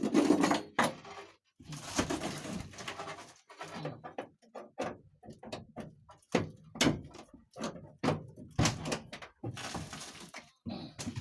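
Car door opened with a thunk and some rattling, then a run of sharp clicks and knocks as a tool pries at the rear window crank, trying to pop it off.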